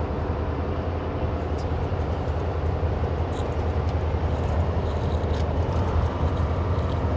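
Steady drone of a semi truck's diesel engine with road and tyre noise, heard inside the cab while cruising on the highway.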